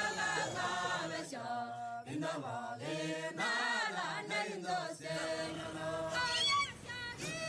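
Vocal music: chanting voices singing held notes that glide up and down.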